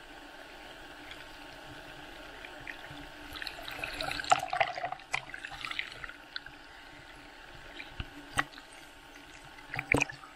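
Ocean whitewater foam fizzing and sloshing around a camera held at the water's surface in a waterproof case. A burst of splashing and crackling comes about four seconds in, and a few sharp clicks or slaps near the end.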